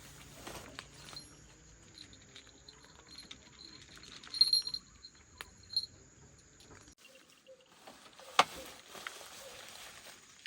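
A cat eating dry kibble: scattered small crunches and clicks, with a few louder clicks partway through.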